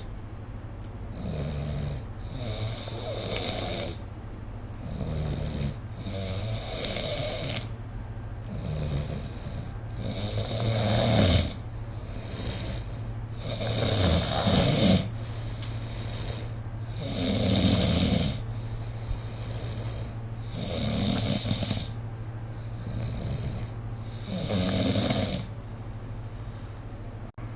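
A sleeping person snoring, a rough snore on each breath repeating about every three to four seconds, over a steady low hum.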